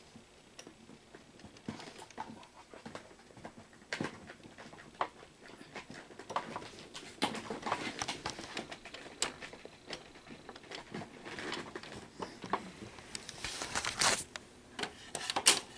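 Scattered light clicks and knocks of hands working on an opened Sony SL-100 Betamax VCR, around the cassette housing and its switch connector.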